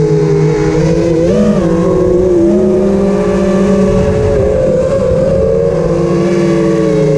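Diatone Crusader GT2017 FPV quadcopter's brushless motors and propellers whining, heard close up from a camera mounted on the frame. The pitch holds fairly steady, with a short rise about a second and a half in.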